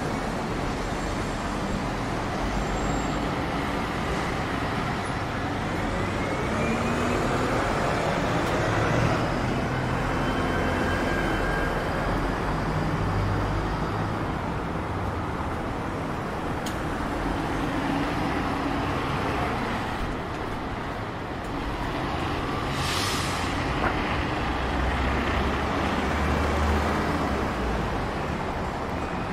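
Road traffic on a city street: steady engine and tyre noise, with engines rising and falling in pitch as vehicles pass, and a short hiss about three-quarters of the way through.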